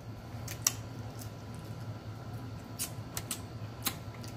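Scattered small clicks and crackles of crab shells being picked apart by hand, about seven sharp ticks over a low steady hum.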